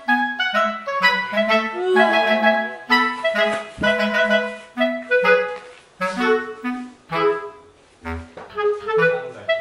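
Background music: a woodwind melody of short notes over a bass line.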